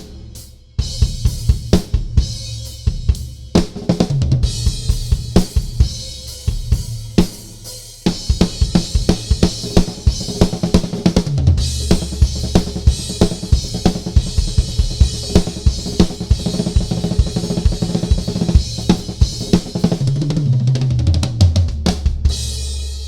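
Drum solo on a Gretsch Renown Maple kit with Sabian cymbals: fast snare, bass drum and tom strokes under cymbal and hi-hat wash. Fills run down the toms to the floor tom about eleven seconds in and again near the end, and the kit rings out at the close.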